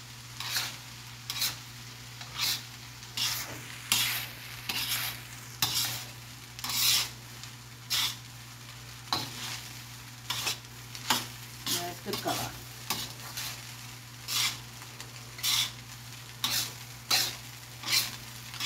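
Spatula stirring and scraping fried rice in a large wok, in regular strokes a little more than once a second, over a faint sizzle of frying.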